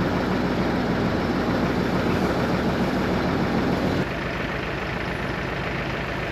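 Massey Ferguson diesel tractor engine idling steadily. About four seconds in, the sound changes suddenly and turns a little quieter.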